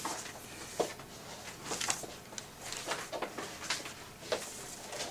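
Faint room tone of an indoor function room, with scattered short clicks and knocks about once a second.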